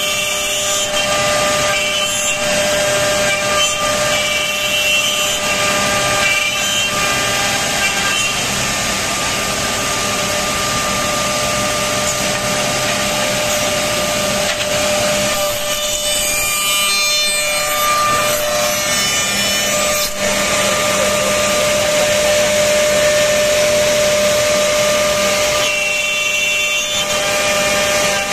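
Double-end CNC tenoning machine running, its cutter-head spindles giving a steady whine over the rasp of wood being cut.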